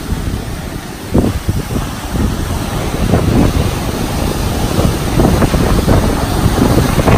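Strong tropical-storm wind buffeting the microphone in irregular gusts over heavy surf breaking and washing up the beach.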